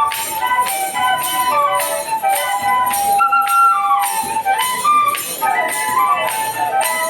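A traditional Kenyan flute plays a lively melody of short and held notes, over shaken jingle rattles keeping a steady beat of about two strokes a second.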